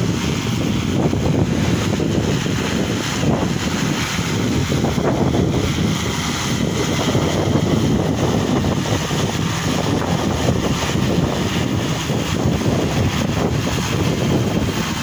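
Strong wind buffeting the microphone: a steady, rumbling rush that covers the whole sound.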